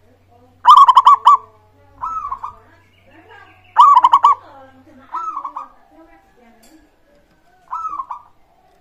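Zebra dove (perkutut) song: five rolling, pulsed cooing phrases, two loud ones about a second in and about four seconds in, with quieter answering phrases between and near the end.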